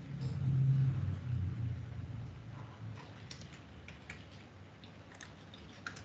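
A low rumble for the first two seconds or so, then scattered computer keyboard clicks.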